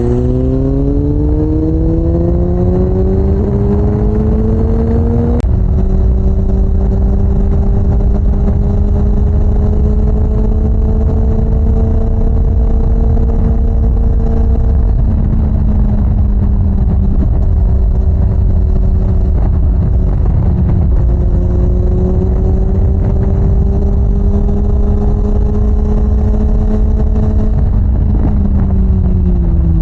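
Suzuki GSX-S750's inline-four engine pulling up through the revs for about five seconds, then a gear change drops the revs. It runs at a fairly steady speed before easing off near the end. Heavy wind rumble on the microphone lies under it.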